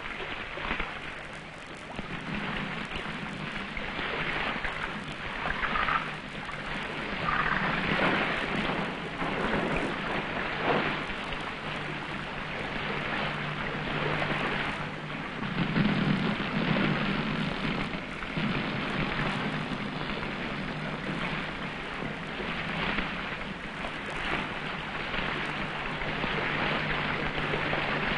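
Wind rushing over a sailing ship's sails and rigging, rising and falling, with irregular crackles of loose canvas.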